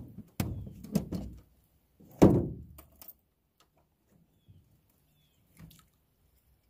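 Several knocks, then one loud hollow thump about two seconds in, of fishing gear being handled against a rowboat, followed by a few small ticks. Faint short bird chirps near the end.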